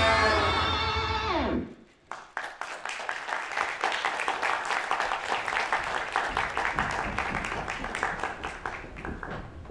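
Live music ends with its pitch sliding down about a second and a half in, then an audience applauds, the clapping gradually dying away.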